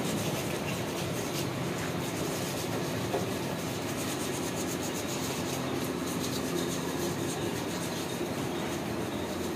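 Steady workshop machine noise with a low hum and a fast, faint clatter, under a few light knocks of cast-iron sewing machine bodies being lifted and handled.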